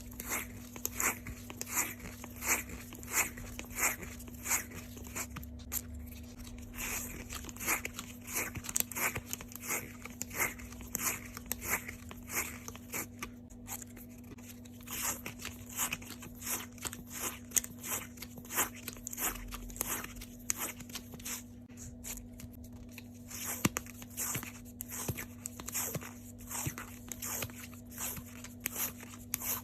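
Washi tape being pulled off its roll and wound by hand, a quick run of sticky crackling pulls about two to three a second, over a faint steady hum.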